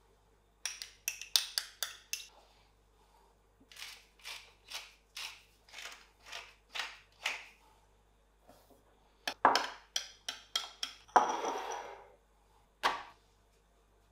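A small metal spoon clinking and scraping against a small glass bowl while yogurt is spooned in and stirred with chopped parsley. It starts with a quick run of taps, goes into even stirring strokes about two a second, and ends with more clinks and a short scraping rush.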